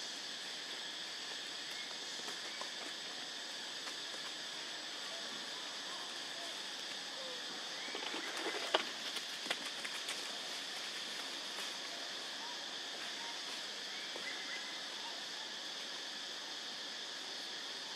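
Steady outdoor ambience in a forest clearing: an even hiss with a thin high steady tone, a few faint bird chirps, and a handful of light clicks and knocks about halfway through.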